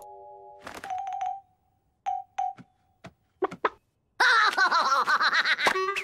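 Cartoon sound effects: a held chime-like tone ends under a second in, followed by a few short pings and separate knocks, then a loud warbling cartoon character's cry for about a second and a half near the end.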